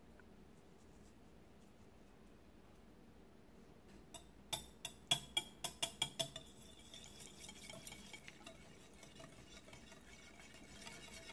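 Wire whisk beating egg yolks in a glass bowl. After a few quiet seconds come about eight sharp clinks of the wires against the glass, then a quieter, fast, steady clicking whisk.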